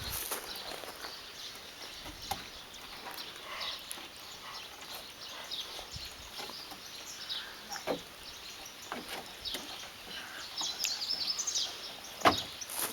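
Birds chirping outdoors: many short, scattered high chirps, with a quick run of them near the end. Two brief knocks stand out, about 8 seconds and 12 seconds in.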